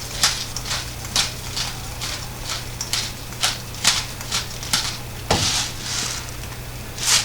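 Black pepper being dispensed from a spice container into the soup pot: a run of short, crisp clicks a few times a second, with a longer rustle about five seconds in.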